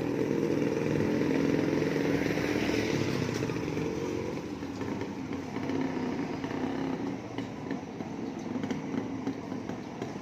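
A motor vehicle's engine running close by as it passes, loudest for the first four seconds and then fading into general street traffic.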